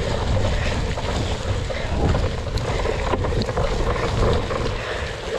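Wind buffeting a GoPro's microphone on a cyclocross bike in motion. There is a steady low rumble throughout, with scattered clicks and knocks from the bike and tyres over rough ground.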